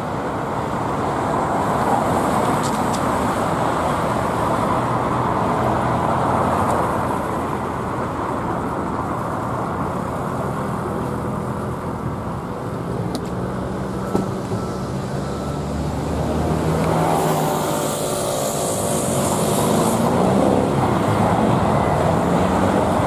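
Busy city street traffic: cars, motorcycles, vans and lorries running in slow, stop-and-go flow as a police motorcycle escort passes through. A heavy engine's hum grows louder about two-thirds through, and a hiss lasting a few seconds comes in at the same time.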